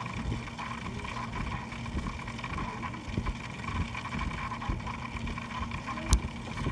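A PC making a grinding noise: a steady mechanical hum with a whine in it and an uneven, rough low rattle. A single sharp click comes about six seconds in.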